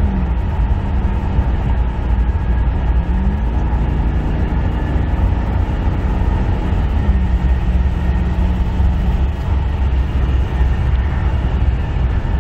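Cabin sound of a 1985 C4 Corvette's 5.7-litre V8 pulling hard at about 90 to 100 mph, under a heavy wash of road and wind noise. The engine note rises about three seconds in and drops back about seven seconds in.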